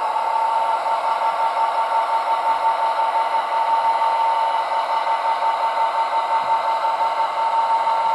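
Sound-fitted Bachmann Class 66 model locomotive running, its LokSound V5 DCC decoder playing a recorded Class 66 diesel engine sound through small speakers. The sound is steady and thin, with little bass and a held high tone.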